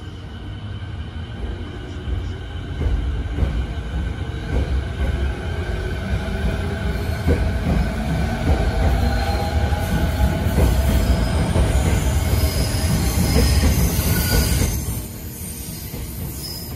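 JR 209 series electric commuter train pulling out and gathering speed along the platform: a steady low rumble of steel wheels on rail, with clicks over the rail joints and a rising whine from the traction motors as it accelerates. The sound eases off sharply about 15 seconds in.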